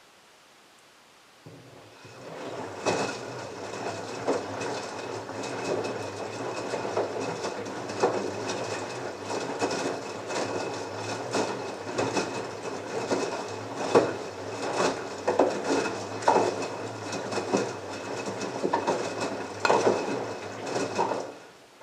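LG front-loading washing machine drum tumbling a load of wet clothes during the wash's heating phase. The motor gives a steady hum with a thin high whine, and the clothes and water slosh and thud irregularly as they drop. The drum starts turning about a second and a half in and stops just before the end.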